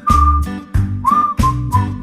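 Upbeat background music: a whistled melody over a steady bass beat of about three beats every two seconds.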